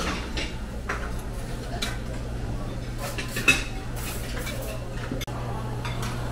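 Metal serving spoons and tongs clinking against stainless steel buffet pans: a few scattered knocks, the loudest about three and a half seconds in with a brief ring. A steady low hum runs underneath.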